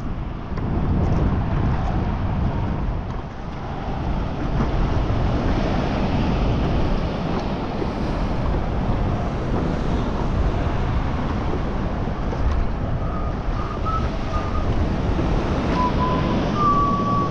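Wind buffeting the microphone in a steady low rumble, over the wash of small waves on open water.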